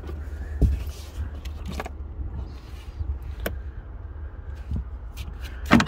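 A few scattered clicks and knocks of a gloved hand and tool working the battery terminal clamp under the boot floor of an Audi A2, the loudest near the end, over a steady low rumble. The terminal is being tightened because a loose connection is suspected of cutting all the car's power.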